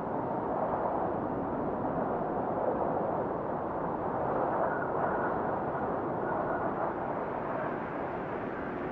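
Steady rushing wind ambience, an even noise with no tune or beat in it.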